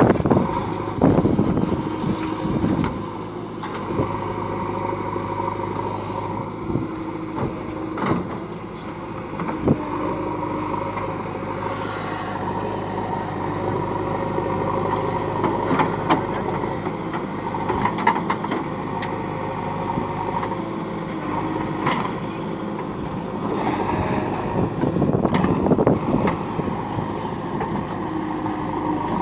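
JCB backhoe loader's diesel engine running steadily, with a few sharp knocks along the way.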